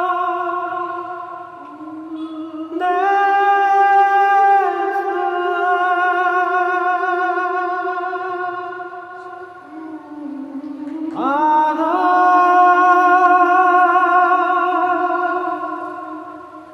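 Slow, wordless melodic music: long held notes with vibrato, sliding up into each new note, in two phrases that each swell and then fade.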